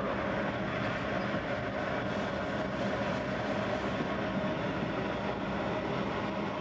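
Steady hum and rumble of bakery machinery running: the motor-driven turning tray of a rotary bread oven and a dough machine, with a low drone and a higher hum that do not change.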